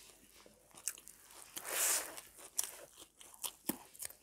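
Close-up eating sounds of a homemade veg burger being bitten and chewed: scattered crisp crunches and mouth clicks, with one brief louder hissy swell about halfway through.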